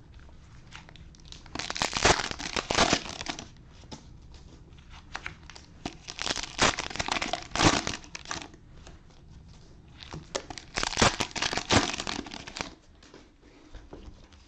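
Cellophane wrapper of a trading-card cello pack crinkling and tearing as it is handled and opened, in three bouts of crackling with quieter handling between them.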